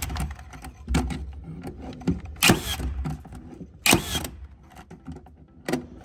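Metabo HPT NR3665DA cordless metal connector nailer driving nails through a metal hurricane tie: four sharp shots about a second and a half apart, the middle two the loudest.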